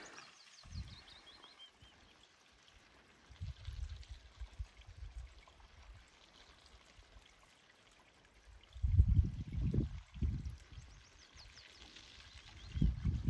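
Faint running water, with gusts of wind buffeting the microphone now and then; the strongest gust comes about two-thirds of the way in. High, faint chirping trills near the start and again near the end.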